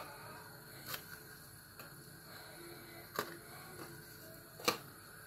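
A few short, sharp clicks spaced irregularly, the loudest near the end, over a faint steady low hum.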